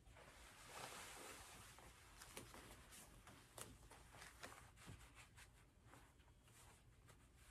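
Near silence with faint rustling of a taekwondo belt and uniform fabric as the belt is wrapped around the waist and tucked, strongest about a second in, with a few soft ticks.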